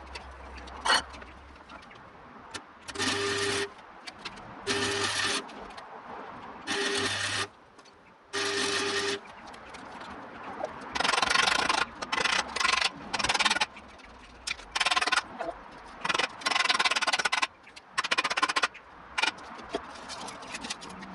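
Electric metalworking tool run in a series of short bursts of about a second each: four evenly spaced bursts with a steady hum under them, then a quicker run of bursts near the end.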